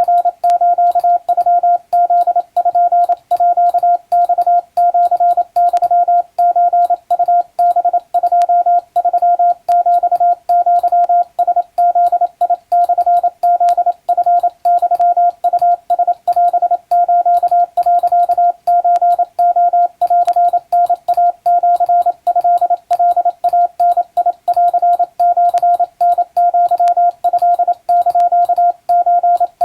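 Wabun (Japanese) Morse code: a single steady mid-pitched tone keyed on and off in quick dots and dashes, sending telegram practice text with only short pauses between characters.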